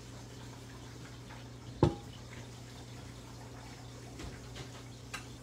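Quiet kitchen sounds: a steady low hum with the faint hiss of a covered pan simmering on low heat, one sharp clink of kitchenware with a short ring about two seconds in, and a few light clicks near the end.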